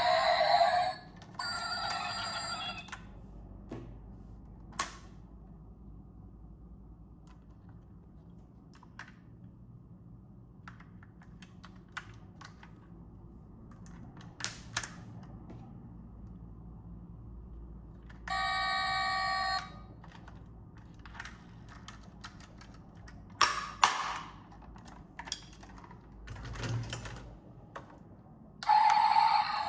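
Packaging being handled: scattered light clicks and taps, a louder cluster of them about two thirds of the way through, and a short steady multi-pitched tone lasting about a second and a half midway.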